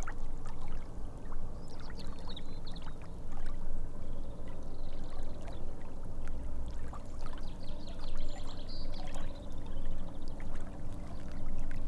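Water trickling and lapping steadily, with short high bird chirps now and then.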